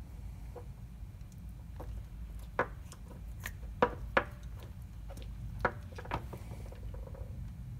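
Scattered sharp clicks and light knocks as small suppressor parts and a grease brush in a metal tin are handled on a wooden workbench. The five or so louder clicks come between about two and a half and six seconds in.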